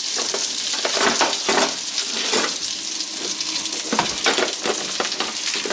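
Metal kitchen utensils clattering and clinking as a hand rummages through a utensil drawer, over a steady hiss.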